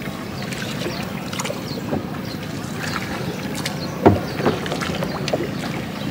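A small boat's engine running steadily, with scattered small clicks and a sharp knock about four seconds in, followed by a lighter one.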